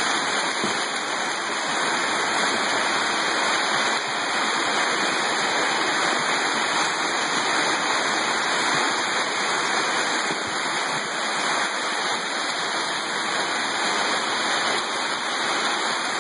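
Heavy hailstorm downpour: a dense, steady hiss of rain and hail pelting surfaces, unbroken throughout.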